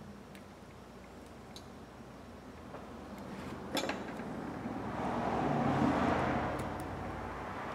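Small metal clicks of tiny phone brackets, screws and tools being handled on a work mat. Behind them a broad noise swells from about three seconds in, peaks and fades, like a vehicle passing.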